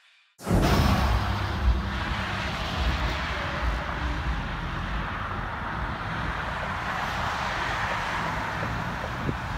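Road traffic: cars and SUVs driving past, a steady wash of tyre and engine noise with a low rumble. It starts abruptly about half a second in.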